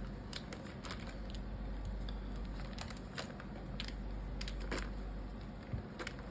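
Trading cards being handled: scattered faint clicks and light rustles of card and plastic over a steady low hum.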